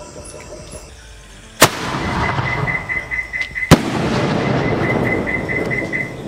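Two loud bangs of Cock Brand sky-shot fireworks bursting overhead, about two seconds apart. Each bang is followed by a few seconds of crackling as the sparks fall.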